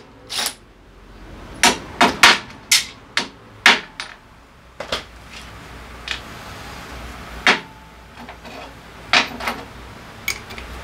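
Sharp metallic clinks and knocks of hand tools and small metal parts being handled and set down on a workshop floor, about a dozen scattered single hits, the loudest in the first four seconds.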